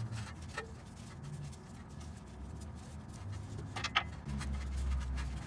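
Quiet handling sounds of an oxygen sensor and its wiring being turned by gloved hands, with a small click about half a second in and a sharper click just before four seconds. A low hum comes in near the end.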